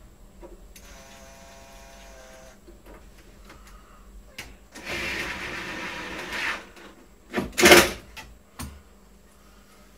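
Cordless drill whirring steadily for about two seconds. Then, a few seconds later, it runs under load for about two seconds as it drives into the wooden cabinet. A loud sharp knock follows about a second after that.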